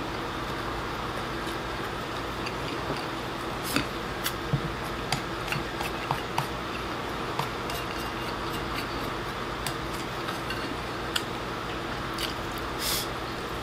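Wooden chopsticks clicking and scraping against a ceramic rice bowl as rice is scooped up and eaten, in scattered light clicks with a few sharper taps, over a steady background hum.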